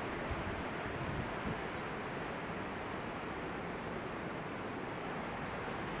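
Steady rushing of a mountain stream, an even hiss with no let-up.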